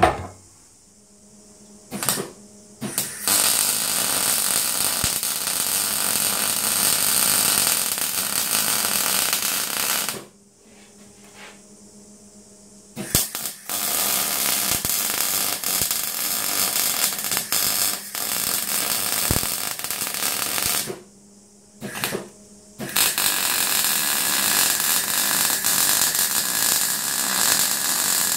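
MIG welder arc burning as a steel bracket is welded onto box-section tube. Two short tack blips come first, then three long weld runs of several seconds each with short pauses between, the last one still going at the end.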